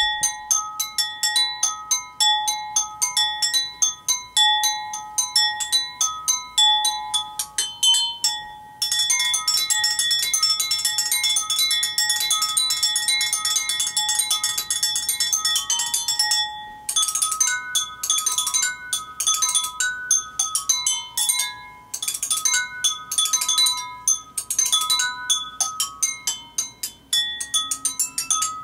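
Tuned wine glasses, partly filled with liquid to set their pitches, struck quickly with chopsticks to play a tune as bright ringing notes. In the middle there is a long stretch of fast, continuous rolling strokes.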